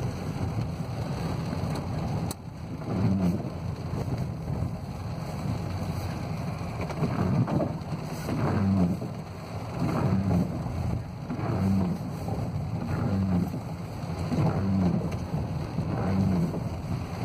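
Car cabin noise while driving in the rain: engine and tyres on the wet road with rain on the body, and a low pulse repeating about once a second.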